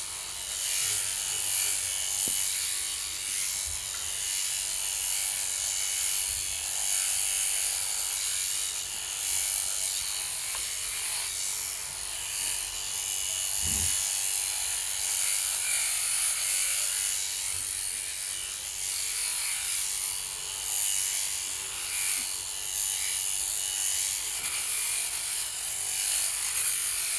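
Beiyuan Xpert oil-bath sheep-shearing handpiece, driven by a flexible shaft, running steadily as its comb and cutter clip through fleece. It gives a continuous high-pitched buzzing hiss, with one brief low thump about halfway through.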